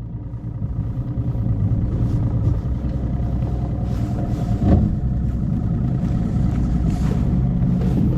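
Motor running steadily, growing louder over the first couple of seconds as it speeds up, with one thump about four and a half seconds in.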